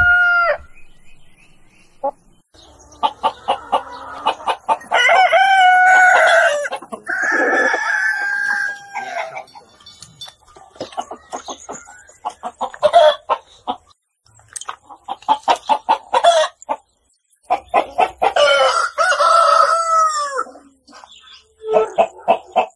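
Roosters crowing several times, each a long call that falls away at the end, with runs of quick clucking from chickens between the crows.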